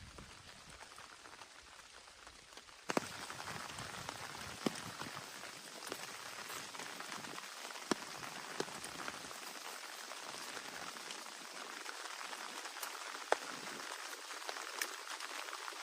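Heavy rain falling steadily, with single drops striking close by now and then as sharp ticks. The rain sound jumps louder about three seconds in.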